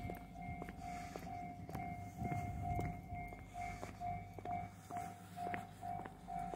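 Railway level-crossing alarm ringing: a single electronic tone repeating evenly about twice a second. Footsteps on pavement click along at a walking pace.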